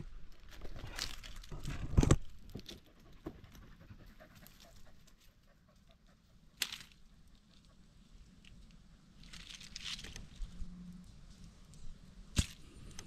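A dog panting, with rustling in the brush and a few sharp snaps or clicks.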